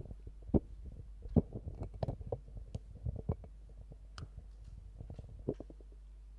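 Handling noise from a handheld microphone: irregular low bumps, rubs and a few sharper clicks as it is moved about, stopping about five and a half seconds in. A steady low hum continues under it and remains after.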